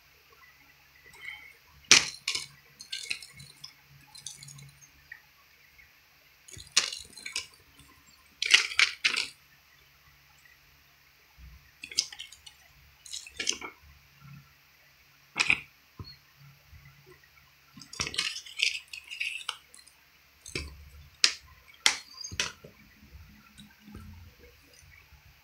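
Plastic Blu-ray cases being handled: a case snapped open and shut and cases clacking against each other as one is put back into a row. The sound is a series of sharp clicks, snaps and short clattery bursts at irregular intervals.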